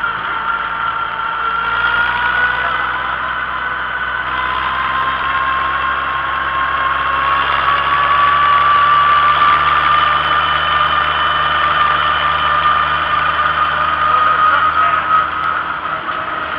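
Vintage farm tractor engine running steadily under way on the road, heard from on board, with a high whine over it that rises slowly in pitch through the first half and then holds steady.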